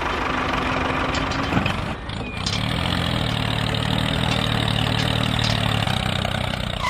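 Tractor engine idling, a steady low hum that settles in and evens out about halfway through.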